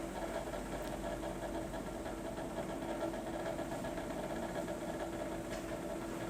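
Steady mechanical hum with two constant tones, one low and one middling, unchanging throughout.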